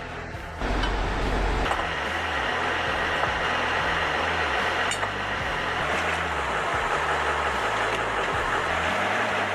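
A heavy truck's engine running steadily, mixed with background music, which begins about half a second in.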